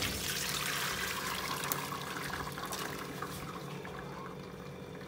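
Whey and curds poured from a steel pot into a cloth-lined colander to strain fresh paneer: a steady splashing pour that slowly thins toward the end.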